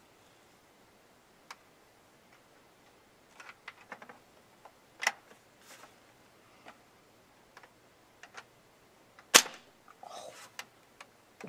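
Light clicks and rattles of a toy Nerf blaster being handled and aimed. About nine seconds in comes one sharp snap, the loudest sound, as it fires, followed by a brief rustle.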